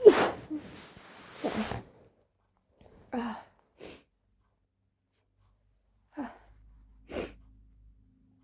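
A woman's loud sneeze bursts out right at the start, with a breathy rush trailing off over about two seconds. A few short, quieter breaths follow.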